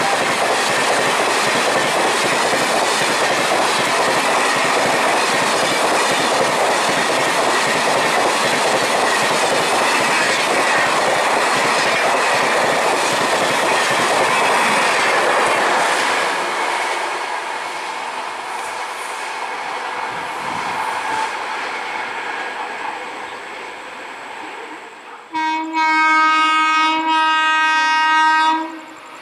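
Indian Railways express train passing at speed, its wheels clattering on the rails, the noise dying away over about ten seconds. Near the end a train horn sounds for about three seconds, with a couple of brief breaks.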